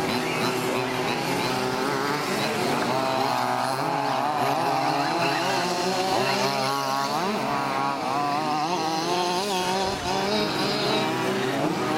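Several large-scale petrol RC Baja buggies' small two-stroke engines buzzing and revving together. Their pitch climbs and drops over and over as the cars accelerate and brake around the track.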